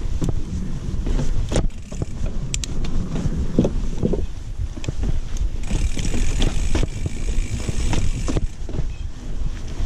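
Mountain bike descending a forest trail: wind buffeting the microphone over a steady rumble of knobby tyres on dirt, with sharp clicks and knocks as the bike rattles over bumps. A brighter hiss comes in from about six to eight seconds in.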